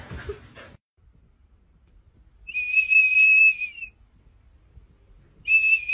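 A small blue plastic whistle held in a golden retriever's mouth, blown in two long, steady, high-pitched toots. The second starts near the end.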